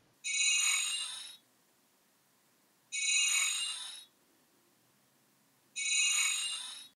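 A bright bell-like chime sound effect, heard three times about three seconds apart, each ringing for about a second and fading away.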